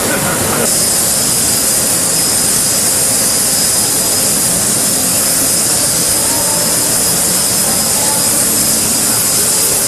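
Wire EDM machine cutting a gear, with a steady loud hiss from its dielectric water flushing over the work and a steady high whine that starts just under a second in.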